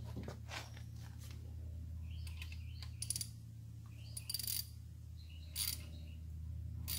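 Metal clinks and taps of a bolt and socket tool against a steel engine bracket as bolts are fitted by hand: a few sharp clinks, some ringing briefly, roughly a second apart in the second half, over a steady low hum.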